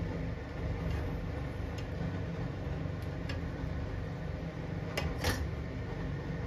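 Steady low mechanical hum with a few light clicks, two sharper ones close together near the end.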